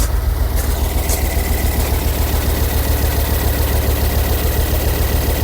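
Ford Focus ST225's 2.5-litre turbocharged five-cylinder engine idling unevenly, with a steady low pulse and a faint steady whine. It is not running happy, and the noise sounds like a water pump.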